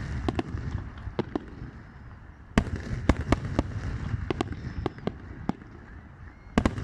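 Fireworks display: an irregular string of sharp bangs over a low rumble. It eases off for a moment, a fresh volley breaks out about two and a half seconds in, and another comes just before the end.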